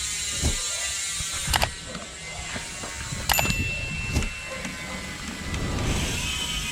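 Downhill mountain bike rear hub freewheeling as the wheel is spun, its freehub pawls giving a fast, even buzz that fades over the first few seconds, with a few sharp clicks.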